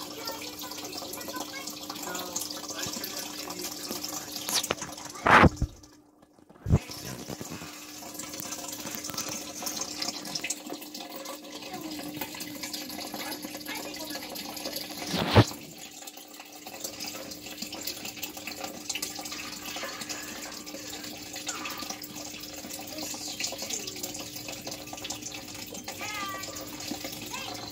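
Steady trickling water in a small turtle tank with a constant low hum under it, broken by a few sharp knocks about five, seven and fifteen seconds in.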